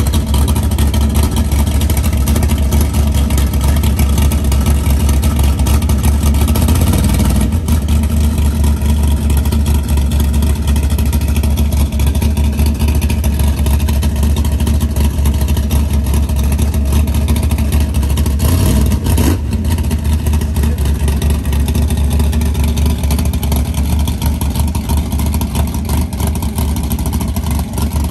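A car's engine and exhaust running with a steady, deep low drone, with a short sharp sound about two-thirds of the way through.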